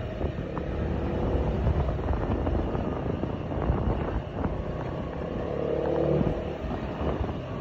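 A motor vehicle's engine running steadily as it drives along a road, heard from on board.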